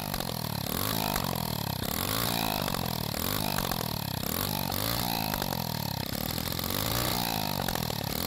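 Pit bike engine running through an exhaust cut off close to the engine, leaving a short, nearly straight-piped open header. The throttle is blipped over and over, the revs rising and falling about once a second.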